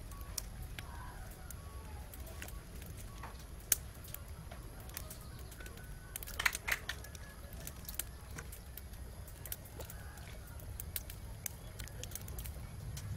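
Outdoor cooking ambience: a steady low rumble with scattered small crackles and faint bird calls. About six and a half seconds in, a short burst of splashing as chunks of sweet potato are dropped into a pot of liquid curry.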